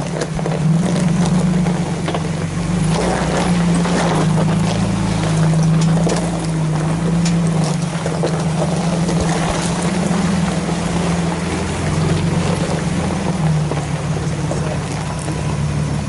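Nissan truck's engine running at low, steady revs while crawling over rock, with the tyres crunching and popping on stones and gravel.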